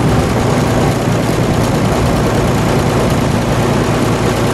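The 1946 Oliver 70 Row Crop tractor's six-cylinder engine runs steadily as the tractor drives along, heard close behind its upright exhaust stack.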